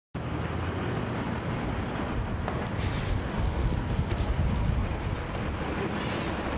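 Cummins ISL9 inline-six diesel engine of a 2011 NABI 40-SFW transit bus running, heard from the back seat inside the bus: a steady low rumble with a thin high whine above it.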